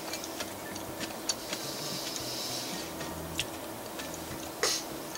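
Quiet room tone with a steady low hum, a few scattered small clicks at irregular intervals and a brief soft hiss in the middle; the loudest click comes near the end.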